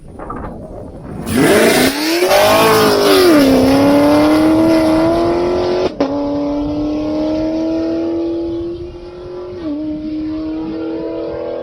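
2016 Camaro SS's 6.2-litre LT1 V8, breathing through long-tube headers and an X-pipe, accelerating hard. The exhaust note comes in loud about a second in and climbs, drops back twice at gear changes, once after a sharp click about six seconds in, then pulls on with the pitch slowly rising.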